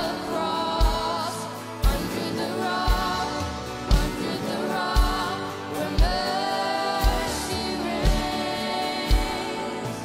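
Live worship band playing: several women singing the song's lines together over keyboard and drums, with a kick drum beat about once a second.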